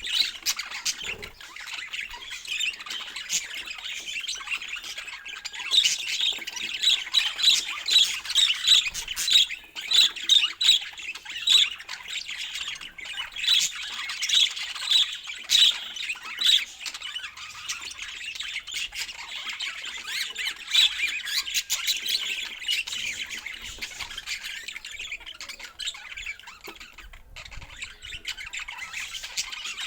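Budgerigars chattering and squawking, with a run of loud, sharp, rapidly repeated calls from about six to seventeen seconds in.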